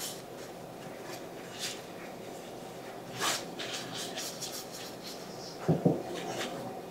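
Paper towel rubbing butter over the inside of a cast iron skillet: faint, irregular wiping strokes. A brief, louder low sound comes about five and a half seconds in.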